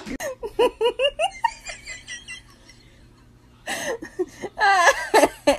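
A person laughing: a run of quick giggles at the start, a quieter pause, then more laughter near the end.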